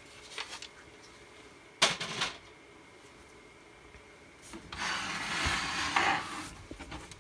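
A single sharp knock about two seconds in, then about two seconds of scraping as the opened laserdisc player's metal chassis is slid and turned on the workbench.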